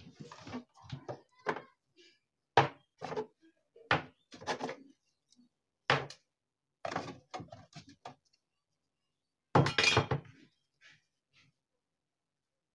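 Wooden cupboard doors and the things on its shelves being knocked and shifted while someone rummages: a string of short thunks and clatters, with a longer, louder clatter about ten seconds in.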